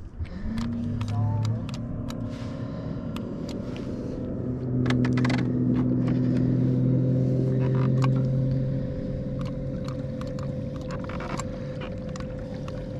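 Bow-mounted electric trolling motor running with a steady hum that shifts in pitch as its speed changes, loudest in the middle, with scattered clicks and taps over it.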